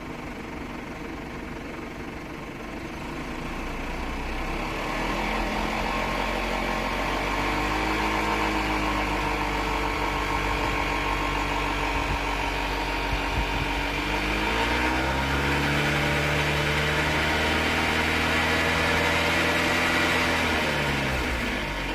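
BMW N20B20 2.0-litre turbo four-cylinder running, its speed shifting a few times, with an abnormal running noise that the owner first placed at the exhaust camshaft and later traced to a defective balance shaft in the oil pump.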